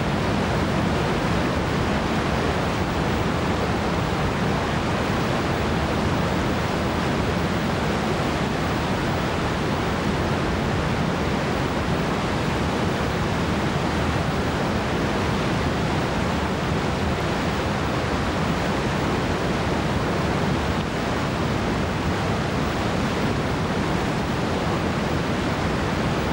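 Whitewater rapid rushing, a steady, loud wash of churning water.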